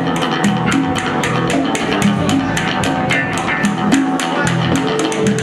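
A live blues-rock band playing an instrumental passage: guitars and bass over a steady beat of percussion hits.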